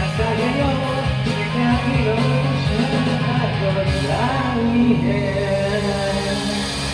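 Rock music with guitar, and a singing voice carrying the melody over the band.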